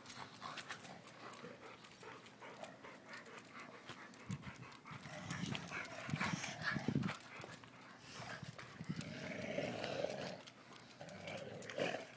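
A Shar-Pei/Mastiff mix and a Boston Terrier wrestling over a ball on concrete: many small clicks and scrapes of claws and bodies, with a few short low sounds from the dogs between about four and seven seconds in.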